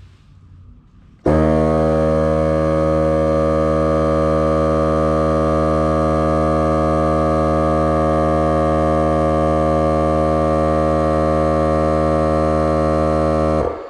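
Milwaukee M18 cordless tire inflator's compressor starts about a second in, runs loud and steady, and stops just before the end.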